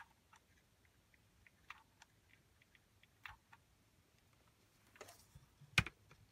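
Faint, scattered clicks of a wax glue gun's trigger as sealing wax is pumped out. Near the end there is a short rustle, then one louder knock as the hand picks up the metal wax seal stamp.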